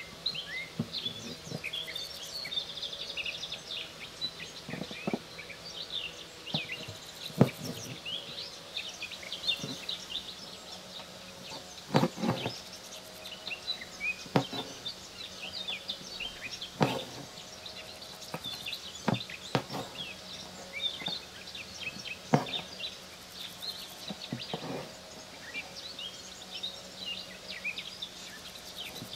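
Small birds chirping busily, with irregular sharp ticks and pops from an embroidery needle piercing hooped fabric as the thread is drawn through. A faint steady hum sits underneath.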